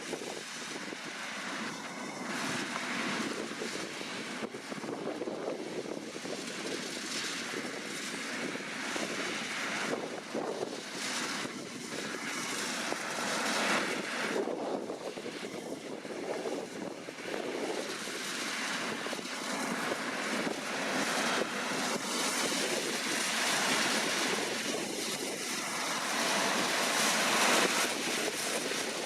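Deutz-Fahr C9306TS combine harvester running as it works, a steady rushing machine noise that grows louder toward the end.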